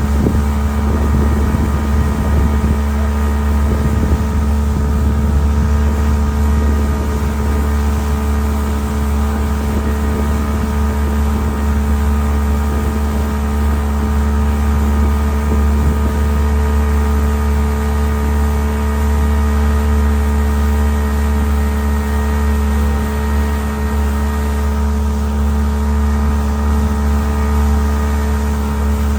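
An engine running at a steady speed: a constant low drone with steady tones above it that do not change.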